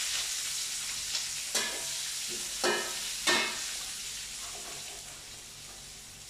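Food frying in hot oil: a loud sizzle, just after the food has gone into the pan, that slowly dies down, with a few short knocks of a utensil in the pan in the first half.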